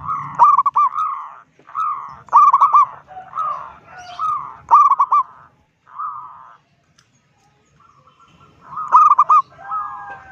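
Zebra dove (perkutut) cooing loudly: a string of rapid, rolling coo phrases, then a pause of about two seconds before it calls again near the end.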